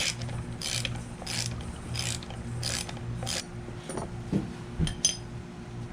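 A hand tool turns screws out of a Viair 380C air compressor in rhythmic strokes, about one every two-thirds of a second, stopping about three and a half seconds in. A few knocks follow, then a short metal clink near the end as the parts are handled.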